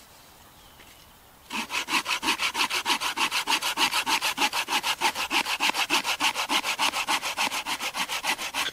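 Small hand saw cutting through a roughly three-inch log in quick, even back-and-forth strokes, about six a second. The sawing starts about a second and a half in and stops just before the end.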